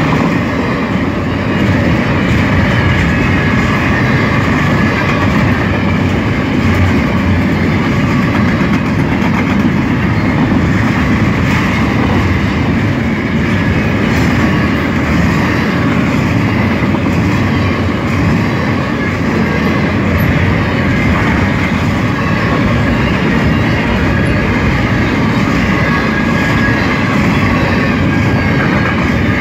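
Double-stack intermodal well cars of a Canadian National freight train rolling past at close range: a steady, loud rumble and clatter of steel wheels on the rails.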